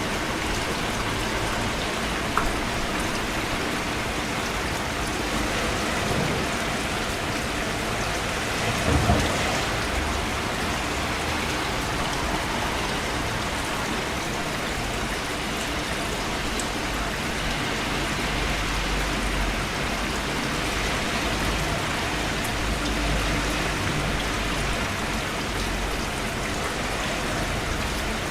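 Steady rain falling and pattering on surfaces, with a brief low rumble about nine seconds in.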